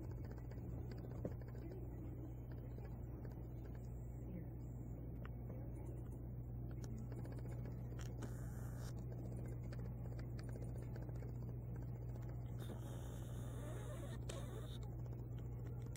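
A husky puppy chewing and gnawing on a plush toy, with soft scattered scratchy clicks, over a steady low hum.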